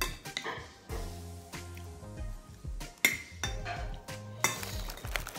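Spoons and forks clinking and scraping against ceramic plates while eating, in scattered strokes with one sharp clink about three seconds in, over background music.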